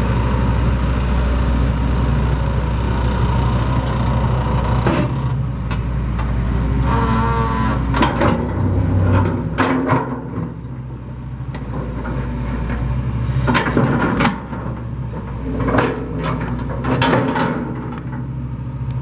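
Hitachi EX300LC-3 hydraulic excavator's diesel engine running steadily, with a series of sharp clunks, creaks and squeaks from about five seconds in until near the end.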